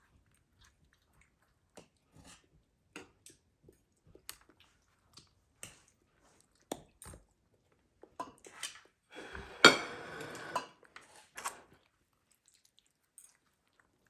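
Eating at a table: scattered light clicks and taps of forks on dishes, with chewing, and a louder clatter of dishes lasting about a second and a half near the end.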